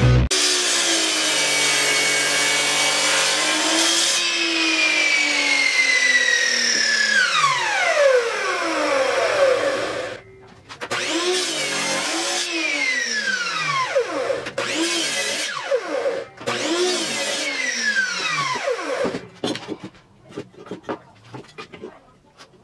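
Mitre saw's motor running, then winding down with a long falling whine. After a short pause it is started and released about five times in quick succession, each a brief run and a falling spin-down, as it cuts angled notches into a solid-wood bar. Light knocks and clicks of the wood being handled near the end.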